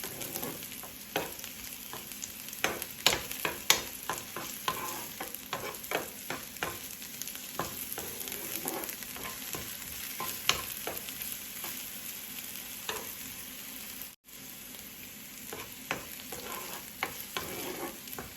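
Onions sizzling in hot oil in a pan while being stirred, with irregular clicks and scrapes of the stirring utensil against the pan over a steady frying hiss. The sound drops out for an instant about fourteen seconds in.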